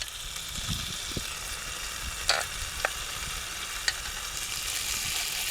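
Burger and mushrooms frying, a steady sizzle with a few sharp pops and crackles.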